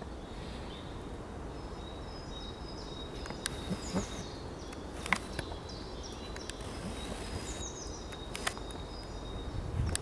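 Woodland ambience: small birds chirping now and then over a steady low background rumble, with a few sharp clicks.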